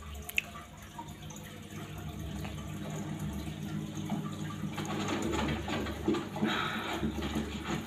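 Running water, steady with a low hum beneath it; a single sharp click about half a second in, and the rush of water grows louder between about five and seven seconds.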